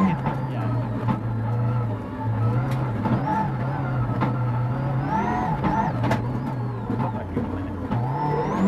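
Mitsubishi Lancer Evo rally car's turbocharged four-cylinder engine heard from inside the cabin, pulling hard with the engine note dropping and climbing through gear changes and throttle lifts. A few sharp clicks.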